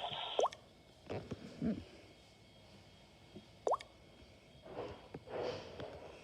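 Two short, rising water-drop-like plops about three seconds apart, with fainter soft noises between them.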